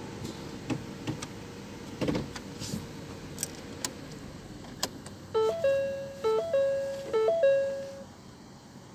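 Scattered clicks and light knocks, then an electronic chime sounds three times, about a second apart: each a quick step of tones ending on a held, fading note.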